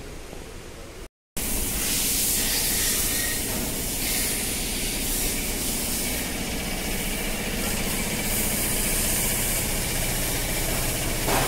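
Hyundai Verna's engine running as the car creeps forward at low speed, under a loud steady hiss. The sound drops out completely for a moment about a second in.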